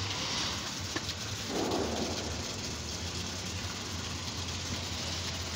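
Distant fireworks: a steady crackling hiss, with a sharp pop about a second in and a dull bang about half a second later.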